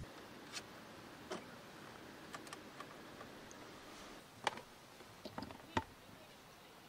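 A scattering of light clicks and knocks from a power cord plug and a plastic power strip being handled, the sharpest two about halfway and near the end, over a faint steady hiss.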